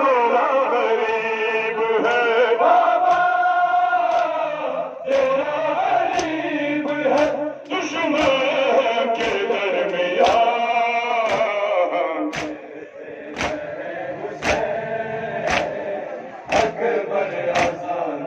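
Men chanting a Muharram noha lament together, with sharp slaps of hands striking chests (matam) in unison about once a second from about five seconds in. The slaps stand out more near the end as the chanting thins.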